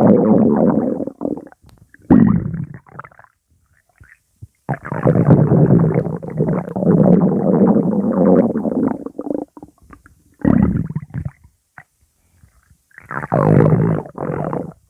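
A stomach growling in five bouts of rumbling with short silent gaps between them; the longest bout, in the middle, lasts about five seconds.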